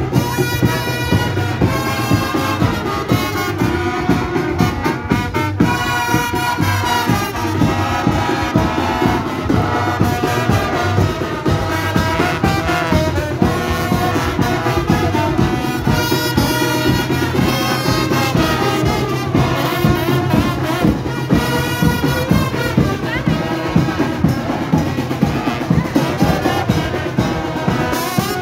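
A marching brass band playing, with trombones and trumpets over a steady beat.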